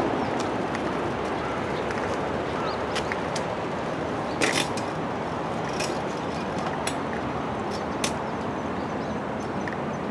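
Steady outdoor city background noise, a low hum of distant traffic, with a few scattered sharp clicks and taps, the loudest about four and a half seconds in.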